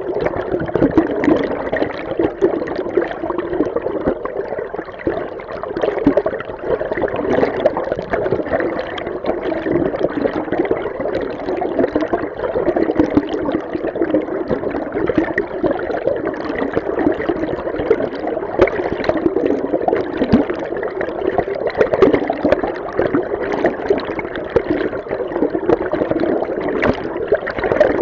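River stream water heard from underwater: a steady, muffled rush of moving water with constant fine bubbling flicker, strongest in the low-middle range.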